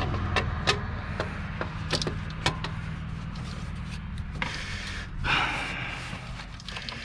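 Sharp metal clicks and knocks, with a scrape about five seconds in, as a used alternator is worked into its mounting bracket in a pickup's engine bay. A steady low hum runs underneath.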